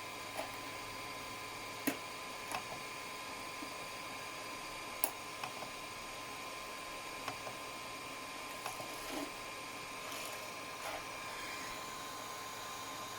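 3D printer part-cooling fan on an SKR 1.4 Turbo board running with a steady high whine over a hiss, broken by scattered, irregular clicks; the fan is faulty.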